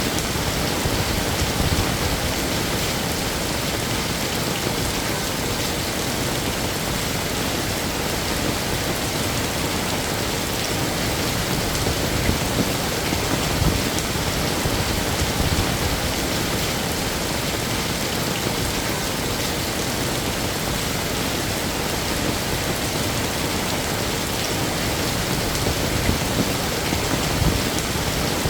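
Heavy rain falling steadily, a dense even hiss of drops on hard surfaces, with low rumbling underneath.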